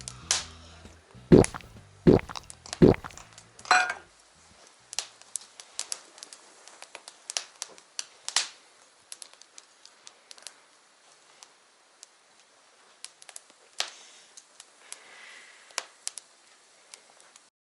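Three heavy knocks within the first three seconds, then scattered sharp clicks and light knocks that stop shortly before the end.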